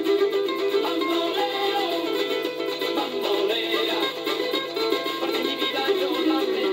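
Rumba music playing from a vinyl LP on a turntable: an instrumental stretch led by plucked strings, with no singing.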